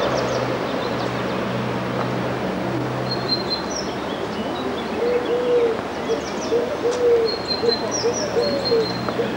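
Birds in the trees: a low cooing call repeated rapidly from about halfway through, with small birds chirping high above it, over a steady hiss.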